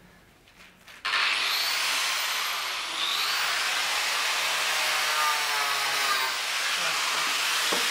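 Angle grinder starting up about a second in and cutting metal: a loud, steady grinding with a high motor whine that dips briefly as the disc bites.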